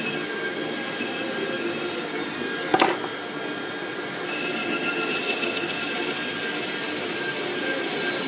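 Pewter tankard spinning on a lathe while a hand-held turning tool cuts its inside: a steady scraping hiss over a motor hum. A sharp knock comes a little under three seconds in, and the cutting turns louder and brighter at about four seconds.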